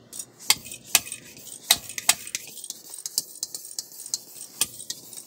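Scattered sharp clicks and ticks, irregularly spaced, over a faint hiss, as air is pumped into a marine engine's blocked-off heat exchanger for a leak test. The hiss is air leaking past the cork plugging one side of the exchanger.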